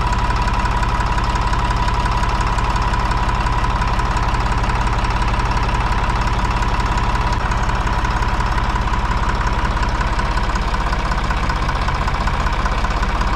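Deutz-Fahr 55F tractor's diesel engine idling steadily, with a steady high whine over the running, while its low idle speed is being adjusted upward.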